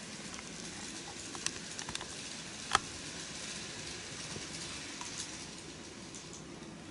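N-gauge model electric train running along the track with a steady low rumble, its wheels giving a few sharp clicks over the turnout and rail joints; the loudest click comes just under three seconds in.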